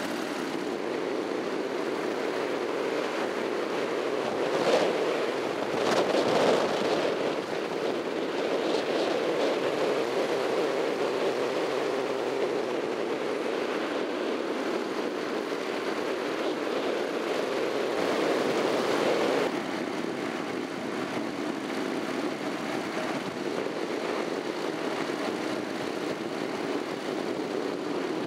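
Honda NC700X's parallel-twin engine running steadily under way, with wind and road noise on the bike-mounted camera. It swells twice around five and six seconds in and drops back a little about twenty seconds in.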